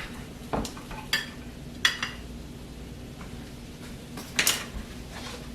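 A metal cooking utensil clinking and knocking against a pot several times while pasta is stirred, over a steady low hum.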